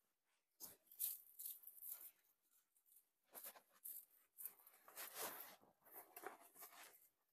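Freshly cut green leafy branches rustling and crackling faintly in irregular bursts as they are spread and pressed flat over the ground by hand.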